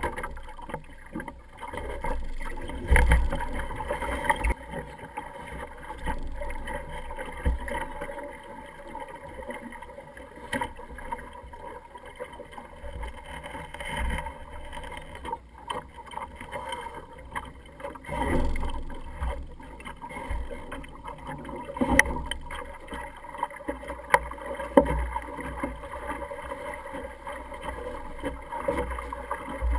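Water lapping and splashing against the hull of an Optimist sailing dinghy under way, with gusts of wind on the microphone and a few sharp knocks from the boat and rig in the second half.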